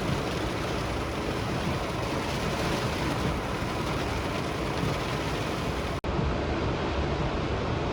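Heavy rain pouring down, a steady hiss and drumming heard from inside a car.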